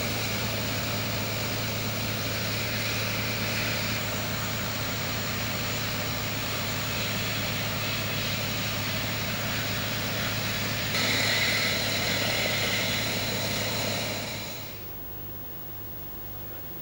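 Steady running noise of construction-site machinery during grit-blasting and steelwork on a riveted iron lattice girder viaduct. It gets louder about eleven seconds in and falls away sharply near the end.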